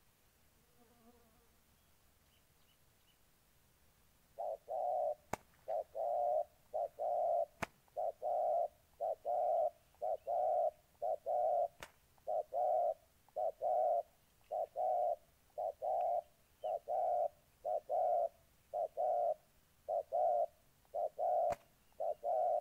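Spotted doves cooing: a rapid run of short, low coos, about two a second in small groups, starting about four seconds in. This is the cooing of rival males in a territorial face-off.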